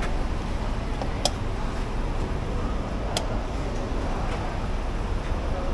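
Steady low rumble of a car running at low speed, with two short sharp clicks about a second and three seconds in.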